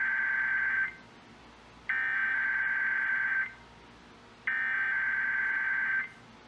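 Emergency Alert System SAME header: three bursts of buzzing digital data tone, each about a second and a half long with about a second's gap between them. The first burst is already under way and ends about a second in.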